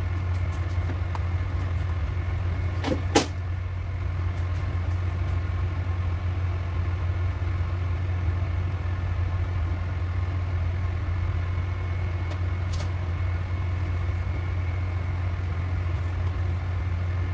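Steady low machine hum, like a motor running without change, with one sharp click about three seconds in.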